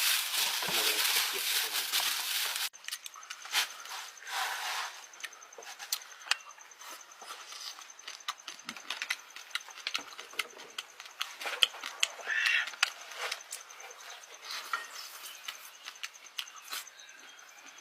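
A dense crackling hiss for about the first three seconds, cutting off suddenly. After it comes close-up eating: many short wet clicks and smacks of chewing, irregular and spread through the rest.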